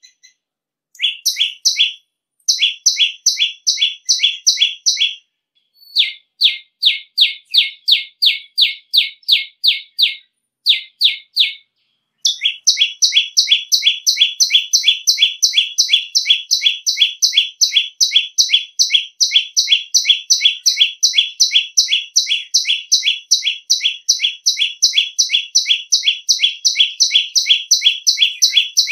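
Common tailorbird (prenjak lumut) calling loud and shrill: one short note repeated about three or four times a second. The notes come in runs broken by brief pauses at first, then run on without a break from about twelve seconds in.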